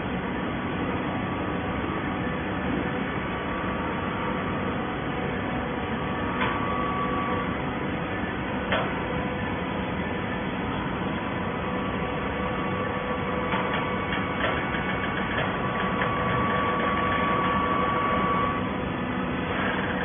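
Industrial horizontal hydraulic baler running: a steady mechanical hum from its motor and hydraulic pump, with two sharp clicks in the first half. In the later part a higher whine comes in and grows a little louder for a few seconds before it stops near the end.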